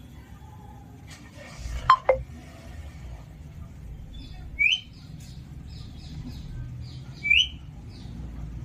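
Pet Alexandrine parakeet calling: two sharp falling calls about two seconds in, then two short rising chirps, one in the middle and one near the end.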